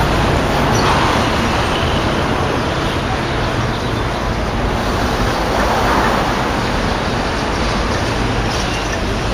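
Container wagons of a freight train rolling steadily past on the track, a continuous noise of wheels on rail.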